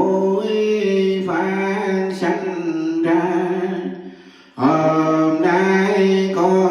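Buddhist chant sung in long, drawn-out held notes. It fades away about four seconds in and starts again half a second later.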